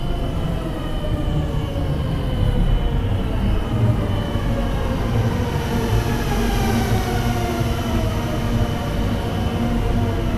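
Horror-film underscore: a loud, dark drone with a heavy low rumble, a steady high whine and several tones slowly sliding downward in pitch.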